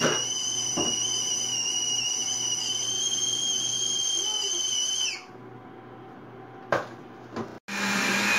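Stainless stovetop kettle whistling steadily at the boil on an induction hob. About five seconds in, the whistle slides down in pitch and dies away as the hob is switched off. Near the end a countertop blender starts with a loud steady whir.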